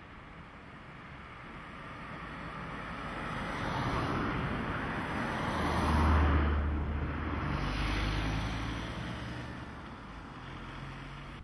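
A vehicle passing by: its sound swells to a peak about six seconds in and then fades away, leaving a low engine hum for a few seconds afterwards.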